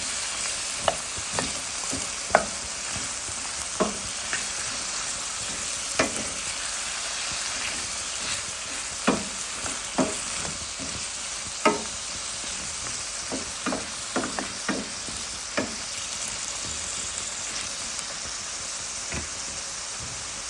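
Potatoes with onions, celery and scallion sizzling in olive oil in a pot over medium-high heat. A stirring utensil scrapes and knocks against the pot at irregular moments, less often near the end.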